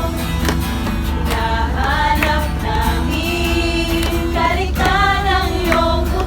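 Christian worship song: voices singing long, wavering held notes over a steady low bass accompaniment.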